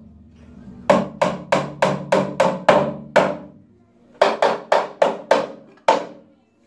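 Hammer driving nails into pallet-wood boards: a quick run of about eight blows, roughly three a second, then a short pause and about six more.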